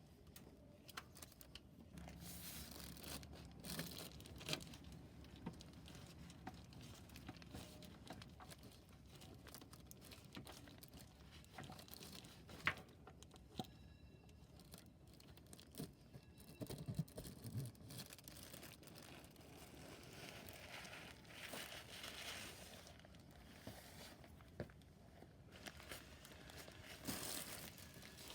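Faint rustling and crinkling with scattered small clicks and knocks, like hands handling things at close range.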